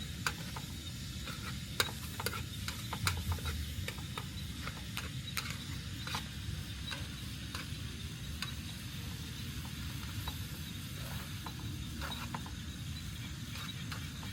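Food frying or cooking over heat: an irregular scatter of sharp crackling pops over a steady low rumble.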